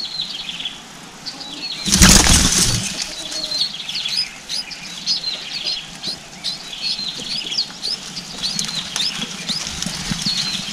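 Red-whiskered bulbuls at the nest giving many short, high chirps, with a loud flutter of wings about two seconds in as the adult settles onto the nest.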